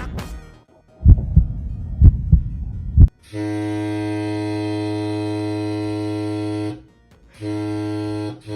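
Homemade ship horn sounding a long, steady, low blast of about three and a half seconds, then a second blast starting near the end. Before the first blast, low rumbling with a few sharp thumps for about two seconds.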